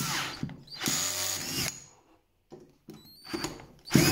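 Parkside cordless drill-driver, its torque clutch set to 16, driving screws in short runs. One run stops just after the start and another lasts about a second. A few light clicks follow, then a brief louder burst near the end.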